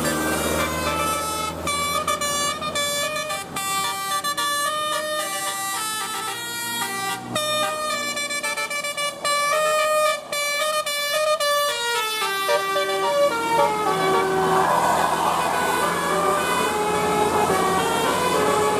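Bus 'telolet' multi-tone air horn playing a quick melody of stepped notes, ending in a falling run of notes about 12 seconds in, then giving way to a noisy wash without clear tones.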